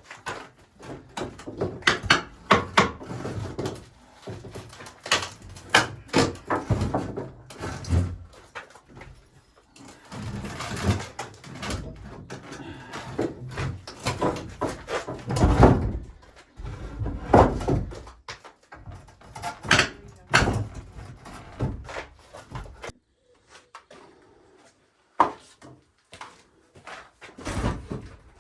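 Repeated knocks, clunks and clatter of hard objects being handled and set down, in uneven clusters, with a quieter pause near the end.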